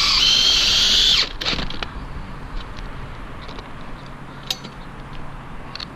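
Power drill driving a screw or lag bolt for the dish mount, running at high speed and stopping sharply about a second in. Light clicks and knocks from handling the hardware follow.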